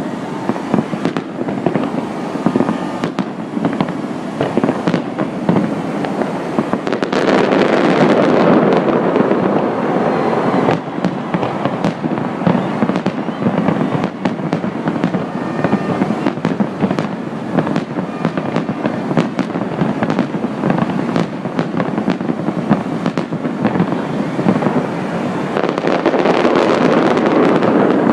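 Fireworks display going off in a dense, continuous barrage of bangs and crackles, thickest about a quarter of the way in and again near the end.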